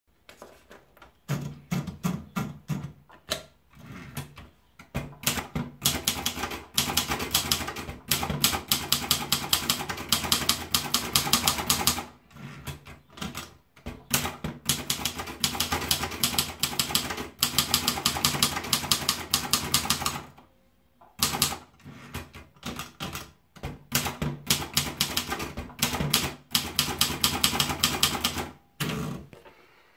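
Imperial manual typewriter being typed on: fast runs of key strikes, several a second, broken by a few short pauses.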